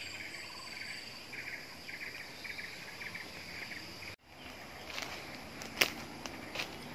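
Tropical forest insects: a steady high drone with short chirping trains repeating about twice a second. After about four seconds the sound cuts out briefly, then comes crunching on dry leaf litter with one sharper snap, as of footsteps.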